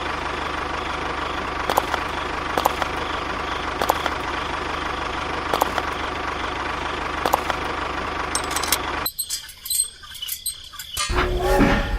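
A small motor running steadily with a buzzing hum and a few sharp clicks, cutting out about nine seconds in. Scattered faint clicks follow, then a louder low rumble starts near the end.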